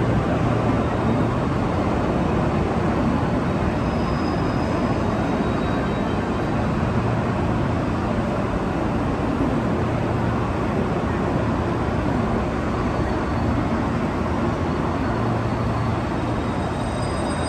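Steady din of a large railway station: a constant low rumble and hum from trains standing at the platforms and station machinery, with faint high-pitched tones near the end.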